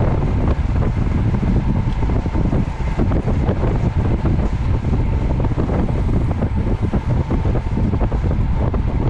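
Heavy wind buffeting on the microphone, a steady loud low rumble with rapid flutter.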